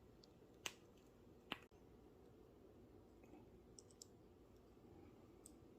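Small metal clicks from handling a miniature cap gun: two sharp clicks about a second apart, then a few faint ticks, against near silence.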